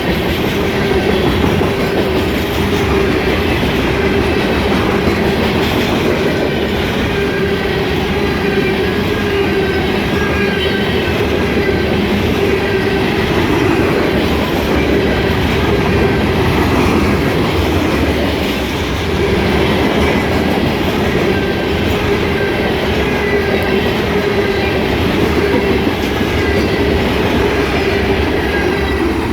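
Loaded grain train of freight cars rolling steadily past, wheels clacking over rail joints, with a faint wavering wheel squeal.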